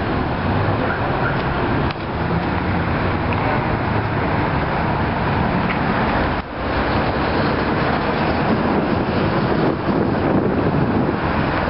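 Light helicopter flying overhead: a steady drone of rotor and engine, with two brief dips in the sound about two seconds and six and a half seconds in.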